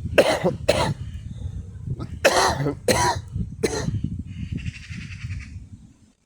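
Coughing: five short, harsh coughs, two close together, then three more over the next second and a half, over a low rumble.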